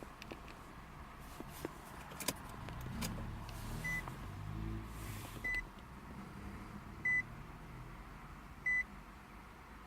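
Car warning chime beeping four times, evenly about a second and a half apart, beginning about four seconds in, over a faint low rumble with a few scattered clicks.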